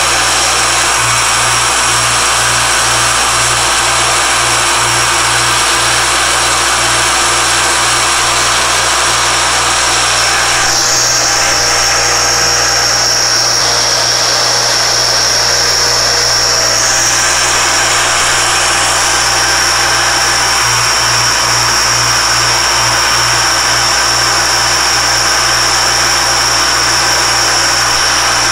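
Alexander Model 3A pantograph engraving machine running, its spindle cutter engraving a watch dial chapter ring into a metal blank. A loud, steady machine noise with a high whine, which changes briefly midway.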